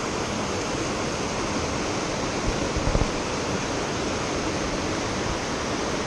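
Mountain river rushing over boulders and small rapids: a steady, even whitewater rush. A few brief low bumps come about halfway through.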